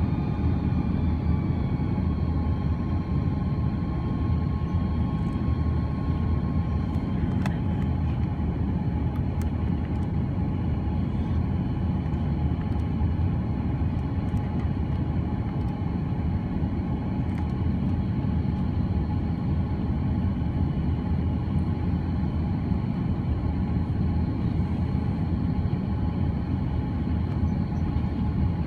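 Airbus A330-300 cabin noise heard from a forward business-class seat: a steady low rumble with a sustained engine whine. One higher engine tone drops slightly in pitch during the first few seconds.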